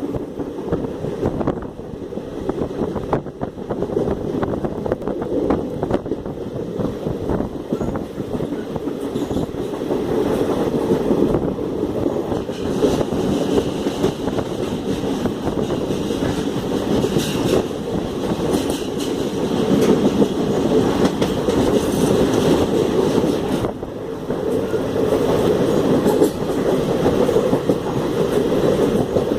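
Passenger train running at speed, heard from on board: a steady rumble of steel wheels on the rails with rapid clicking as the wheels pass over rail joints.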